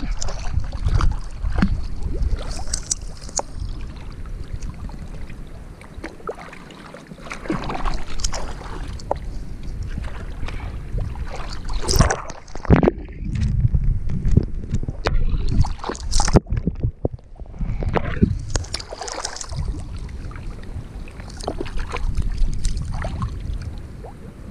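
Water splashing and sloshing close around a waterproof camera at the water's surface as a person moves through a canal with a long-handled litter grabber, in irregular splashes. Twice, about halfway through and again a few seconds later, the sound goes briefly muffled as the camera dips under the surface.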